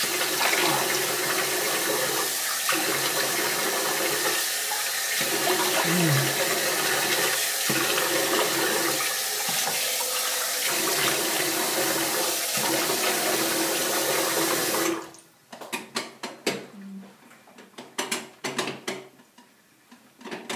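Bathroom sink tap running with uneven splashing as a face is rinsed by hand. It shuts off suddenly about fifteen seconds in, and a few faint knocks and clicks follow.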